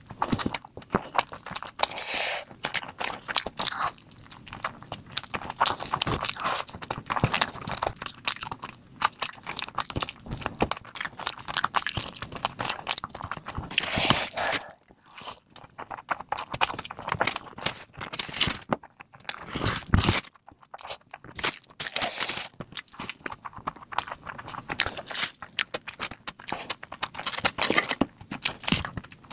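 Close-miked eating: irregular wet chewing and crunching of mouthfuls of rice and mutton eaten by hand, with squishing as the fingers work the rice. A few louder wet bursts stand out about 14 and 20 seconds in.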